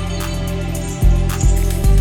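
Background music with a deep steady bass and a regular beat; a new bass note comes in about a second in.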